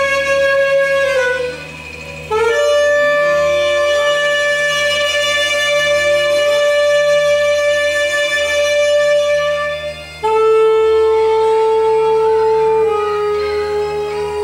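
Unaccompanied saxophone playing long held notes, with a short break about two seconds in and another about ten seconds in. The first note slides down slightly as it ends, and the last notes step down a little in pitch.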